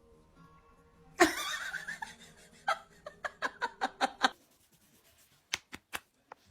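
A person laughing in a run of short, rhythmic bursts, followed by three sharp clicks near the end.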